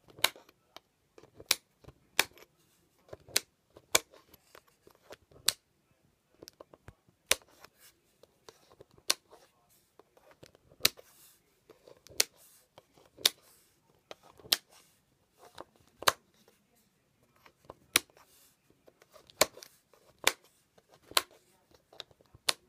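Carling rocker switches being clicked on and off one after another: sharp single clicks, some in quick pairs, about one every second or two.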